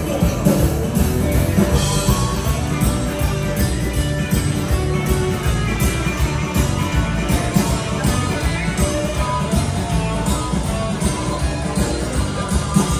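Live amplified dansband music: electric guitars and bass over a steady beat, played by the band on stage.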